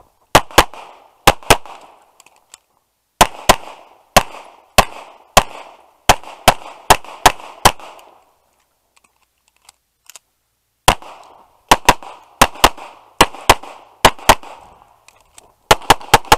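Tanfoglio Stock 2 semi-automatic pistol firing rapid shots, mostly in quick pairs on each target, each report with a short ringing tail. The shooting pauses for about three seconds near the middle, with only a few faint clicks, then resumes in pairs.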